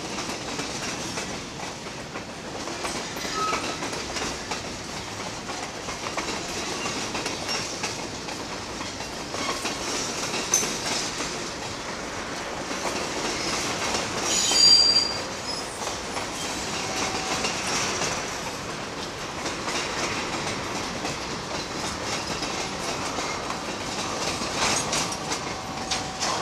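Canadian Pacific freight train's tank cars and covered hoppers rolling past, wheels clicking over the rail joints. A brief high squeal from the wheels about halfway through is the loudest moment.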